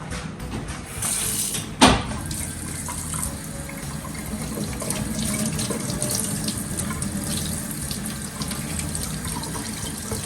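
Tap water running steadily into a sink while a piece of cooked mud crab is rinsed out under it, with one sharp knock about two seconds in.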